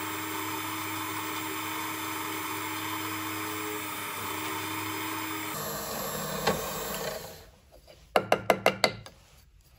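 Small benchtop drill press running steadily as it drills a hole through a thin metal sheet cutout, then winding down about seven seconds in. Near the end, a quick run of about seven sharp taps.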